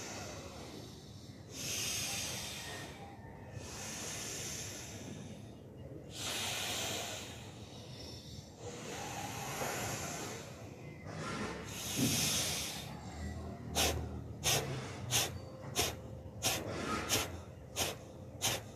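A person doing yoga breathing exercises: slow, deep breaths of a second or two each, then, in the last few seconds, about eight short, sharp, forceful exhalations at roughly one and a half a second.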